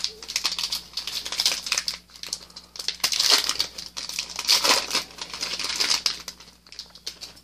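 Foil wrapper of a Panini Prizm baseball card pack crinkling and tearing as it is ripped open by hand. The crackling is loudest in the middle and dies away near the end.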